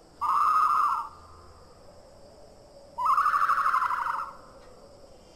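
Two bird-like trilled calls, each about a second long, the second starting about three seconds in: an animal-call sound effect standing for a Microraptor.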